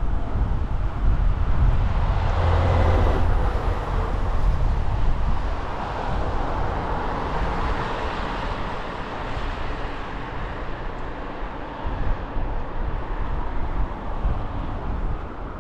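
Wind buffeting the microphone of a helmet-mounted action camera on a moving bicycle: a steady low rumble, with a broader rushing noise that swells about two seconds in and again around eight seconds.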